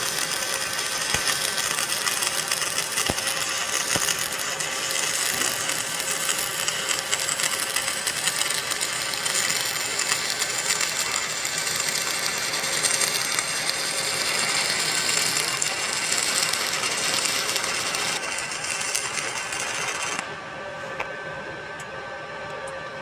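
Stick (SMAW) welding arc crackling and hissing steadily as the rod is run along a horizontal joint, cutting off about three seconds before the end.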